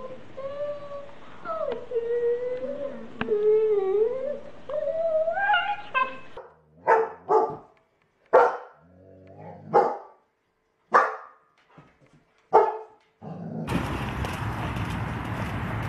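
German shepherds whining in a wavering, sliding pitch. Then a German shepherd barks about six separate times, a second or so apart. Near the end, water splashes as a German shepherd leaps and runs through a pond.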